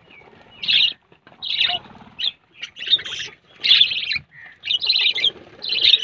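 A flock of budgerigars chattering in short, high chirps, about one or two a second.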